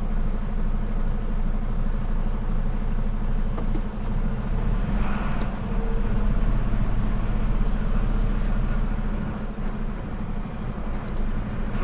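Truck's diesel engine running at low speed, a steady low hum heard from inside the cab as the lorry rolls slowly along, with a brief hiss about five seconds in.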